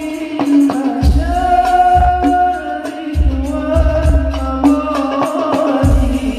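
A male singer performing an Islamic sholawat, drawing out long, wavering ornamented vocal lines over hadrah percussion with deep bass-drum beats roughly once a second.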